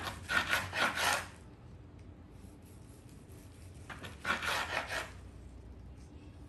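A long slicing knife sawing through a smoked brisket with a crusty bark. There are two rasping runs of quick back-and-forth strokes, each about a second long: one at the start and one about four seconds in.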